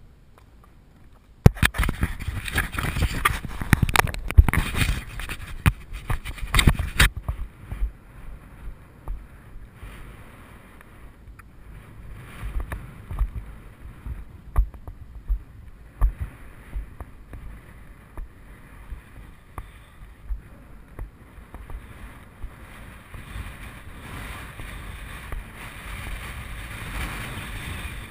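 Horse's hoofbeats thudding at a regular stride under wind rushing over a GoPro carried by the ridden horse. A loud stretch of knocking and rustling fills the first few seconds, and the wind grows steadier near the end.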